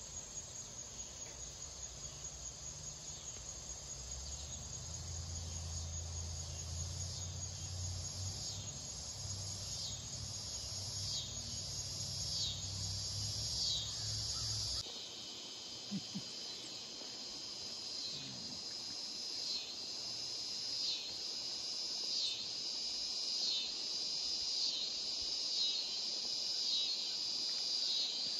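Steady chorus of insects on a riverbank, with one call repeating about once a second as a short falling note. A low rumble underneath stops abruptly about halfway through.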